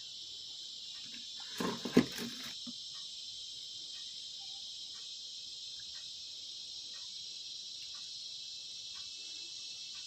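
Crickets chirping in a steady, high-pitched, unbroken trill. About two seconds in comes a short clatter of knocks, the loudest sound.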